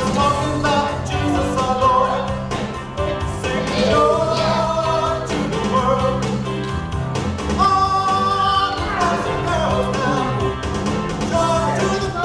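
Song with a singing voice over a steady beat of drums and bass.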